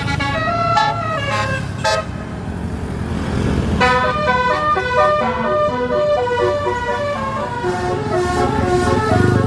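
Bus telolet musical air horn playing a quick run of notes, stopping about two seconds in, then playing a longer tune of short stepping notes from about four seconds in, over a low engine rumble.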